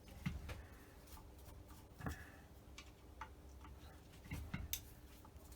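Light, irregular clicks and taps of a Holley two-barrel carburettor being turned over and handled, with a louder knock about two seconds in and a quick cluster of knocks about a second before the end.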